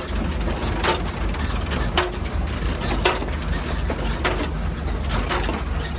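A sailboat winch ratcheting with a sharp click about once a second as the mainsail is handled, over a steady low rumble.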